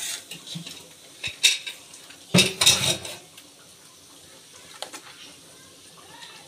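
Metal spatula scraping and clanking against a steel wok as food is stirred, in a few short bursts, the loudest about two and a half seconds in.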